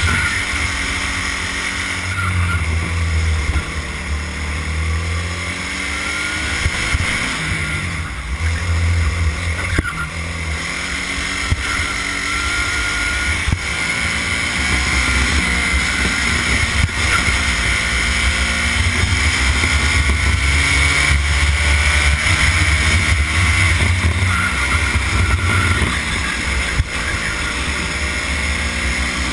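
Racing go-kart engine heard from onboard the kart, running hard at full throttle, its revs climbing along the straights and falling away into the corners, over and over.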